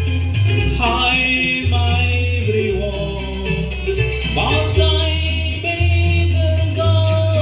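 Live keroncong band music: plucked strings over long, deep bass notes, with a sung or played melody that swoops up and holds a long note about four and a half seconds in.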